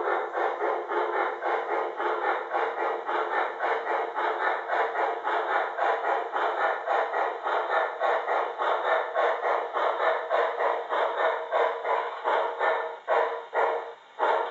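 Sound-equipped model of the Norfolk and Western 2-6-6-4 steam locomotive No. 1218 playing steam exhaust chuffs from its speaker, about four a second, in step with the running model. Near the end the chuffs space out as the locomotive slows almost to a stop.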